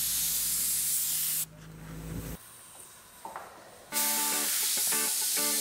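Gravity-feed paint spray gun hissing as it sprays car paint, cutting off about a second and a half in and starting again about four seconds in. Plucked-string music comes in with the second burst.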